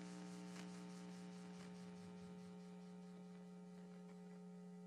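Faint, steady electrical mains hum, a low unchanging buzz with a light hiss behind it.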